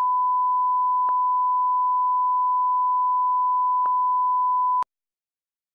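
Steady 1 kHz line-up test tone of the bars-and-tone kind, the reference tone for setting audio levels. It has two faint clicks, about one and four seconds in, and cuts off abruptly near the end.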